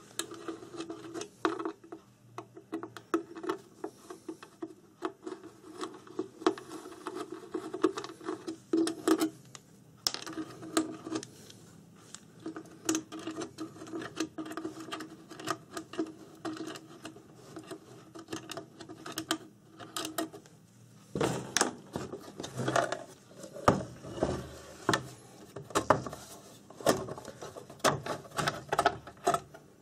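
Screws being turned out of the case of a Meratronik V560 digital multimeter with a screwdriver: a steady creaking with many small clicks for about twenty seconds. After that come louder clicks and knocks as the housing is handled.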